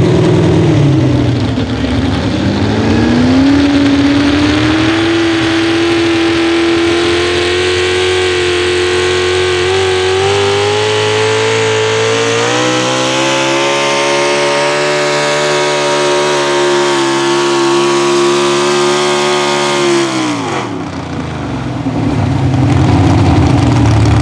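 Modified pulling truck's engine at full throttle, pulling the sled: it revs up steeply about two seconds in and holds high, its pitch slowly climbing, then drops off sharply about twenty seconds in and settles to a low rumble.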